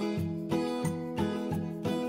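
Background music: a steady run of plucked notes, about three a second.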